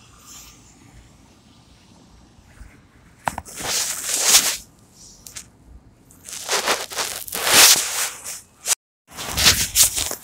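Phone handling noise: the microphone rubbing and scraping against fabric as the phone is turned around. It comes as three loud rustling bursts after a quieter start, with a brief dropout to silence near the end.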